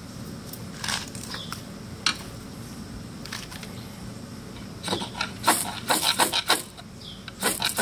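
Ferro rod struck with a metal striker over fatwood shavings: a few light scrapes, then a quick run of hard scraping strikes about five seconds in that throw sparks, and a few more strikes near the end.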